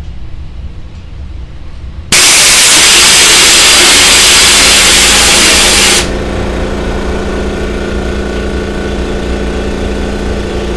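Loud hiss of compressed air let out of an air compressor for about four seconds, starting and stopping abruptly, after which the Makita MAC2400's oil-lubricated cast-iron Big Bore pump runs steadily.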